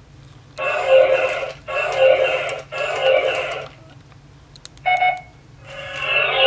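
Electronic sounds from a Vimpro RC smart robot's built-in toy speaker: three one-second bursts in a row, a short beep about five seconds in, then another burst that swells near the end.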